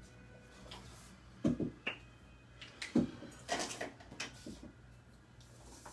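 Desk handling sounds: two dull thumps about a second and a half and three seconds in, with a short click between, then a sheet of drawing paper rustling and sliding as it is turned on a hard tabletop.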